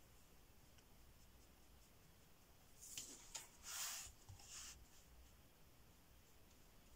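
Paintbrush working paint on a palette: about four short, soft scrubbing strokes between three and five seconds in, otherwise near silence.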